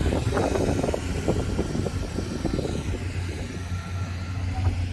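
Vehicle driving slowly, with a steady low engine hum and road noise, and a patch of crackling clicks through the first few seconds.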